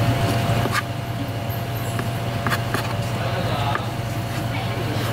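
A knife slicing cooked conch meat, tapping a few times on a plastic cutting board, over a steady low machine hum that is the loudest sound.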